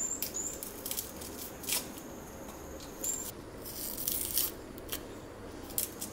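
Dry papery skins being scraped and torn off small shallots with a paring knife: a series of short scratchy rasps and light clicks, with a longer scrape about four seconds in.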